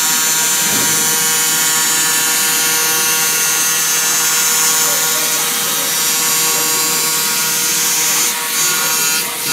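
YAG laser cutting machine running a cut through sheet steel: a steady loud hiss with a constant machine hum of several fixed tones. The hiss dips briefly twice near the end.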